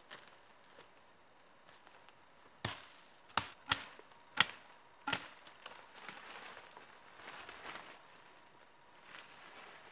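A hand-held blade chopping into saplings: five sharp strikes close together, followed by a softer rustle of brush and dry leaves.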